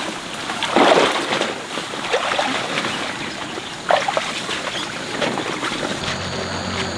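Large taro leaves and stems swishing and rustling as someone forces a way through a dense, wet thicket, in irregular bursts with a sharper crack about four seconds in, along with splashy steps in wet mud and shallow water.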